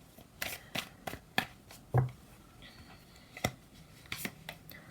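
Playing cards being handled and laid out on a table: a string of short, sharp card flicks and taps, spaced irregularly about half a second to a second apart.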